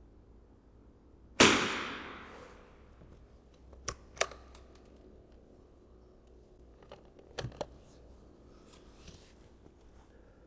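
A single .22 LR rifle shot about a second and a half in, its report fading over about a second. It is followed by a few sharp metallic clicks, in pairs around four seconds and seven and a half seconds in, with a fainter one near the end.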